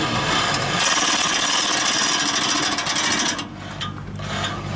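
Lewis winch drum spinning as its steel cable is pulled out by hand against light handbrake tension: a steady harsh mechanical whir that stops abruptly about three and a half seconds in, followed by a few light clicks.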